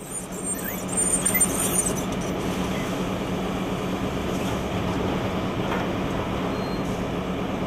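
Sawmill log debarker running as a log feeds through its spinning cutter heads: a steady mechanical rumble and clatter over a low hum, growing louder about a second in and then holding level.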